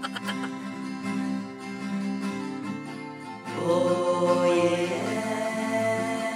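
Slow background music with sustained notes; a new held note comes in about three and a half seconds in.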